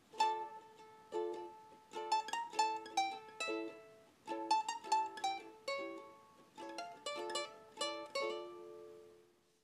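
Light plucked-string music played as a tune of short single notes and chords. The last chord rings out and fades away near the end.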